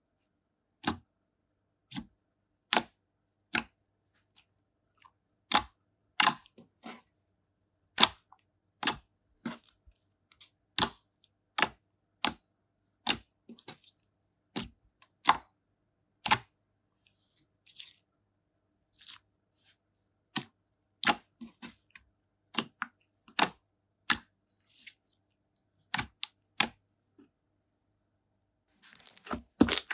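Slime being handled, giving sharp single pops about once a second at irregular spacing, the sound of air pockets bursting as it is pressed and stretched. Just before the end the pops crowd into a quick crackling run.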